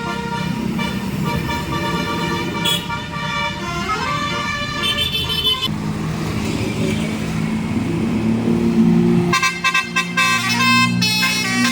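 Bus 'telolet basuri' musical horn playing a tune of quick stepped notes, stopping a little past halfway while the bus's engine and road noise carry on, then starting a new tune near the end.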